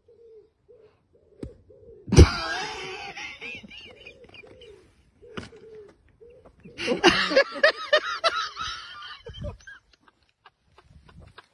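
A golf club strikes the ball sharply about two seconds in, followed by two long stretches of high, wavering human cries, over a pigeon cooing steadily in the background.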